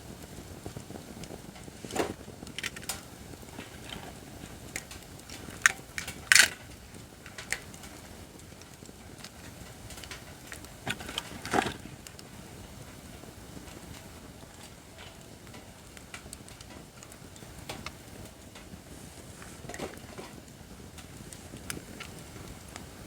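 Acacia firewood burning in a campfire stand: a low steady hiss of flames with scattered sharp crackles and pops, the loudest pop about a quarter of the way in and another cluster around halfway.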